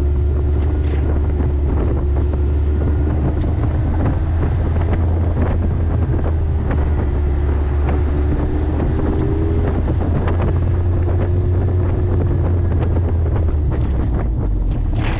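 Heavy wind buffeting on the microphone while riding, over a motorcycle exhaust fitted with a Yoshimura Slip-On Oval Cyclone muffler running at a steady cruise, its note bending slightly up and down near the middle.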